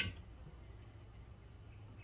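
A single sharp metallic click with a brief ring as the brake caliper is handled and seated. After it there is only a low steady background hum.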